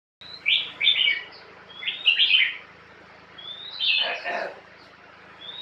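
Caged songbird singing: short loud phrases, each a rising whistle followed by a quick burst of chirpy notes, four phrases in a row, over a faint steady low hum.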